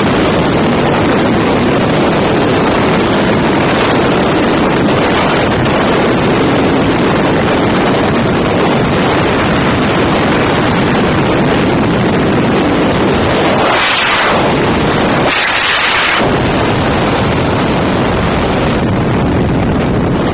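Loud, steady roar of freefall wind blasting a helmet camera's microphone during a skydive. Twice, about two-thirds of the way through, the low rumble briefly thins and turns to a higher hiss.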